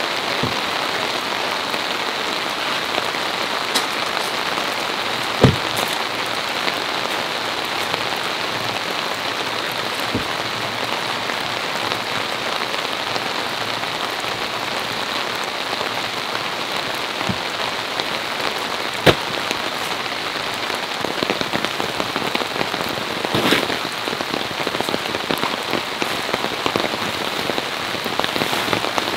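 Steady rain falling, with a few sharp, louder drip knocks standing out, the loudest about five and nineteen seconds in, and denser patter near the end.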